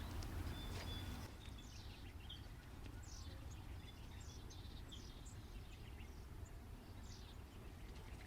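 Faint birdsong: songbirds repeating short, high, downward-slurred chirps, over a steady low rumble. A few clicks and rustles come in the first second.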